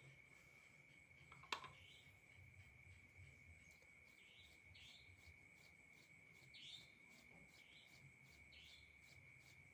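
Faint insect trilling: a steady high-pitched trill with short chirps repeating once or twice a second. A single sharp click comes about a second and a half in.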